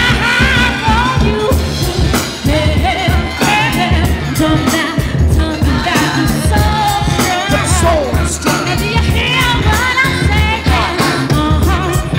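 A woman singing live into a handheld microphone over a funky hip-hop beat with a heavy bass pulse.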